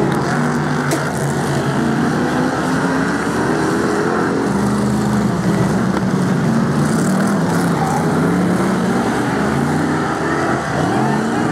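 Several BRISCA F1 stock cars' V8 engines running loud on the oval, the pitch rising and falling as the cars pass and lap.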